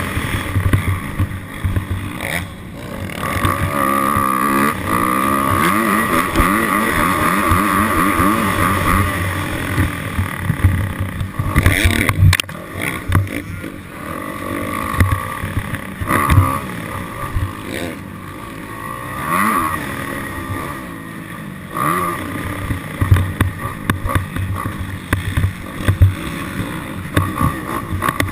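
Dirt bike engine revving up and down repeatedly as it is ridden, with wind noise on the microphone.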